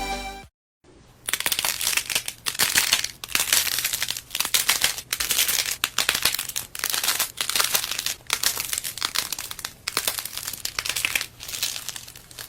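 Slime being pressed and worked by hand, giving a run of crisp crackling, crinkling bursts about twice a second. Background music cuts off about half a second in.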